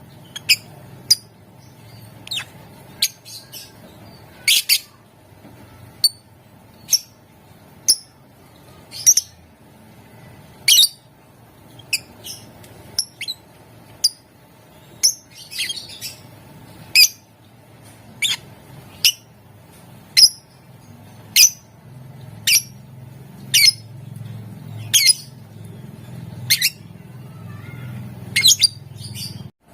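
A lovebird giving short, shrill single chirps, roughly one a second and a little irregular, over a faint low hum.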